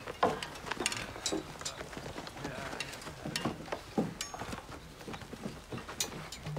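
Scattered footsteps, knocks and light clinks from a group of warriors moving about with shields and weapons.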